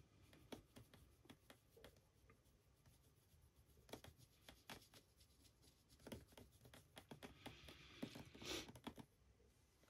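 Near silence with faint, scattered clicks and light scratching: a fine paintbrush working on a 3D-printed figure and fingers handling the model.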